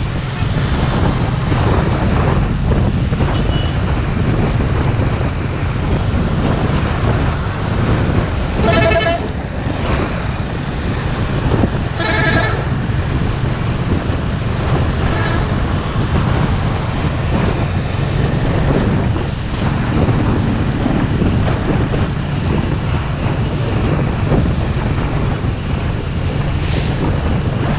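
Steady wind buffeting an action camera's microphone over the rumble of a vehicle riding along a busy road. Two short horn beeps, about nine seconds in and again some three seconds later.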